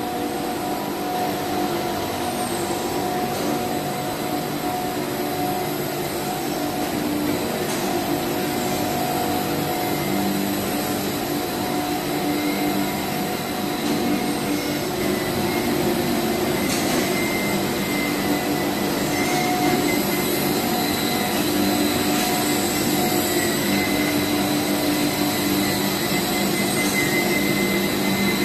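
Machinery of a steel-wire-reinforced PE pipe production line running steadily: a constant whir with several steady humming tones from its motors and drives.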